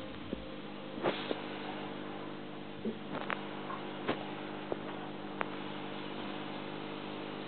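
Aquarium pump running with a steady hum, over the hiss of rising air bubbles, with a few faint ticks scattered through.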